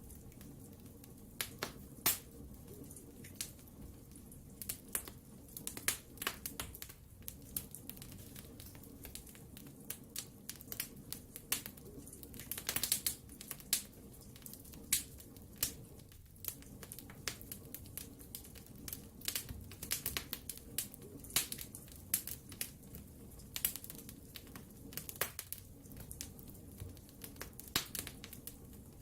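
Wood fire burning in a fireplace, crackling with irregular sharp pops and snaps over a low steady rush of flame.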